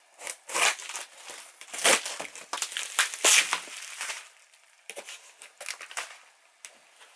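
A cardboard box being cut and torn open, then a bundle of bubble wrap crinkling and rustling as it is pulled out and handled. There are irregular crackles throughout, busiest and loudest in the first half.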